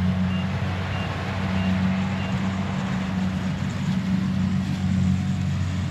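Engine idling steadily with a low hum. A high electronic beep repeats about every two-thirds of a second, then stops about two seconds in.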